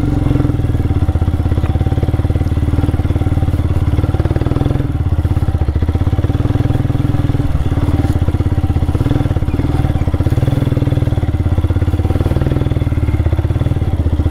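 Motorcycle engine running steadily at low revs while the bike is ridden slowly over a rough off-road dirt trail.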